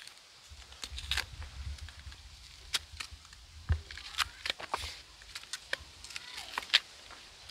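Small knives scraping and cutting the peel off raw green bananas, giving irregular sharp clicks and scrapes, one or two every second.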